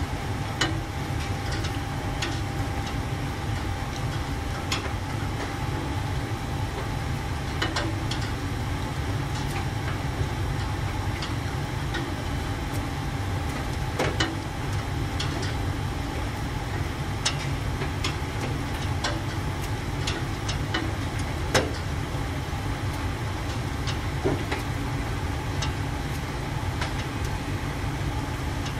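A Kintetsu 1021 series electric train standing at the platform with its onboard equipment humming steadily: a low hum under a thin, steady whine. Irregular sharp clicks come every second or two.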